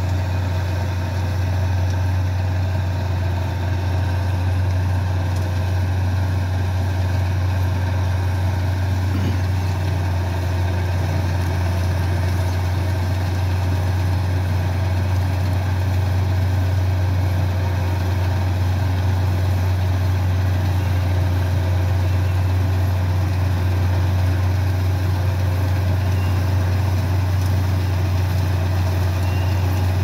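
Laverda Fiatagri 3650 combine harvester running steadily while harvesting wheat: a constant low engine drone, growing slightly louder about halfway through as the machine draws nearer.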